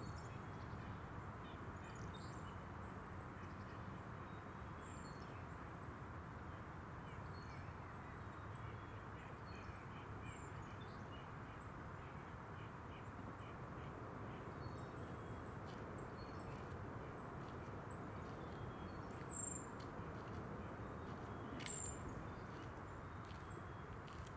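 Outdoor ambience of a steady, even rushing background with birds calling in short, faint, high chirps scattered throughout, and two sharper calls near the end.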